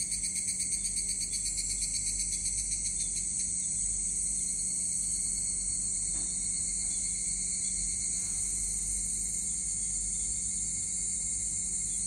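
A chorus of insects trilling steadily in a high-pitched drone, rapidly pulsing at first and smoothing into an unbroken trill, over a low steady hum.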